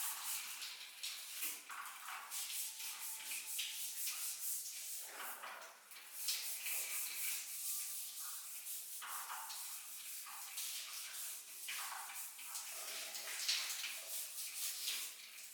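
Irregular rubbing and scraping strokes against a surface, each a short hiss-like rasp, from hands-on cleaning work on an old water heater.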